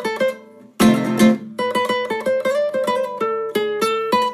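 Soundtrack music on guitar: a strummed chord about a second in, then a run of single plucked notes, stopping at the very end.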